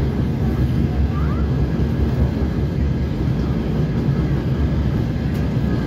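Steady low running noise inside a DR1A diesel multiple unit under way: the diesel engine and the wheels on the rails, with no rail-joint clicks.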